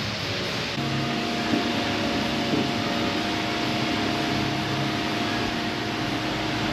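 Steady mechanical hum of workshop machinery. A second, steadier motor hum joins about a second in, with a couple of light knocks after it.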